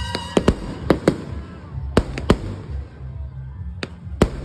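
Fireworks going off: a string of sharp bangs, several close together in the first second or so, two more about two seconds in, and two near the end, over a steady low rumble.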